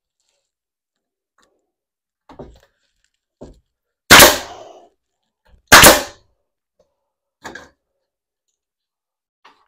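Two loud, sharp bangs about a second and a half apart, from work on the layout's benchwork frame, with a few softer knocks before and after.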